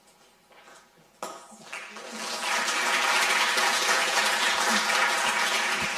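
Audience applauding: the clapping starts about a second in, grows over the next second and then holds steady.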